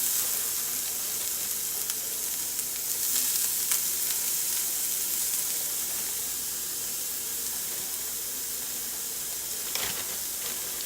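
Diced onions sizzling on the hot, oil-sprayed plates of a waffle maker: a steady frying hiss, a little louder at the start, with a few faint clicks.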